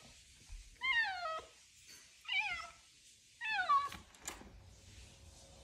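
Domestic cat meowing three times, each meow falling in pitch, while asking to be let out at a door. A couple of short clicks follow soon after the last meow.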